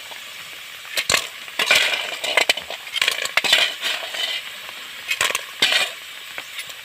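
Sea snail shells clattering and clicking against one another and against a metal spoon, basin and pot as they are scooped up and tipped into the pot. There are a few separate rattling bursts and sharp knocks.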